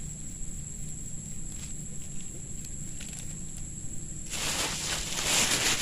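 A plastic bag rustling loudly for about a second and a half, starting past the middle. Before it come faint light clicks of hands working wire-mesh fish traps.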